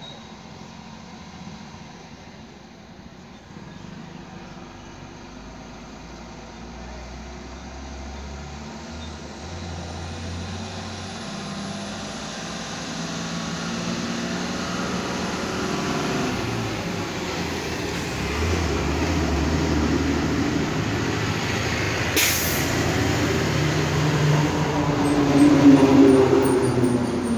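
A vehicle engine rumbling, growing steadily louder, with a single sharp click a little over twenty seconds in.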